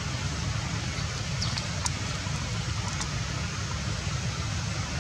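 Steady background noise: a low rumble under an even hiss, with a few faint high chirps about a second and a half in and again at three seconds.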